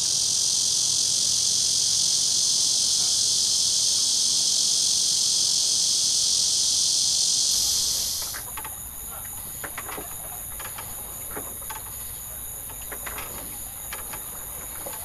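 A dense, steady insect chorus, a high even shrilling, fades out about halfway through. After it comes a much quieter outdoor background with a few soft, scattered knocks.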